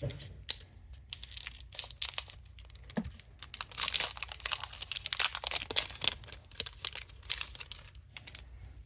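Foil Pokémon card booster pack being torn open and crinkled: a dense run of crackling and tearing that thickens in the middle and dies away near the end.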